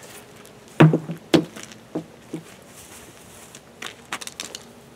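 A plastic traffic cone thrown down lands with a hollow knock about a second in and bounces three more times, then footsteps near the end.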